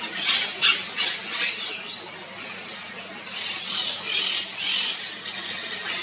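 Monk parakeets squawking in short harsh screeches, about half a second in, again around a second and a half, and in a longer run around four to five seconds, over a steady high-pitched buzz that pulses several times a second.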